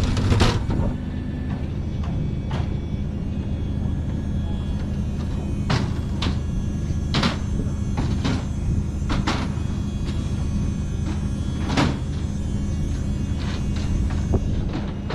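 A steady low machine hum, like an engine or generator running, with irregular sharp knocks and clanks every second or so.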